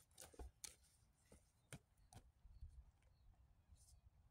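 Near silence with a few faint, sharp knocks as a firewood log is set upright on a wooden stump chopping block.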